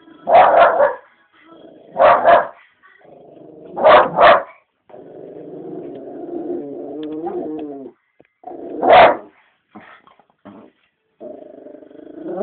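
A dog barking in short pairs of loud barks, three times about two seconds apart, then a single bark after a pause of several seconds.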